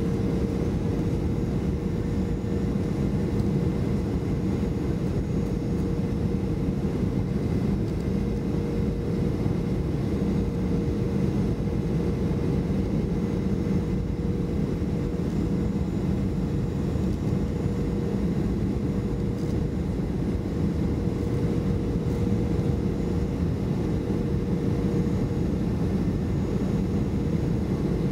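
Steady in-cabin noise of a Boeing 737-500 on final approach: the drone of its CFM56-3 turbofan engines and rushing airflow, with a steady hum running through it.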